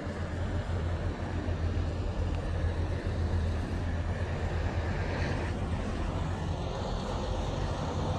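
Road traffic with a steady low engine rumble from a large vehicle running nearby, and general traffic noise over it.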